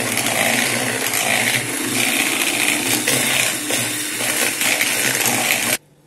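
Electric hand mixer running, its wire beaters whisking egg whites in a plastic bowl, with some clicking of the beaters against the bowl. The motor cuts off suddenly near the end.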